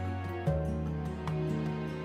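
Soft instrumental background music of sustained tones, the chord and bass changing about half a second in.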